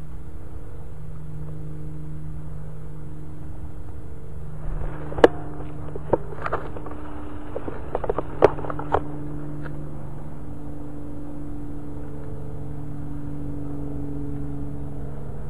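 Airsoft guns firing single shots, about half a dozen sharp cracks at irregular gaps from about five to nine seconds in, over a steady low hum.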